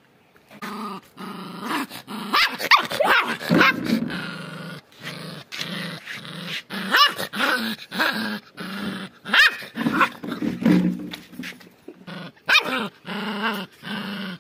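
Puppy growling and giving short, high yips over and over, many of them sliding up and down in pitch.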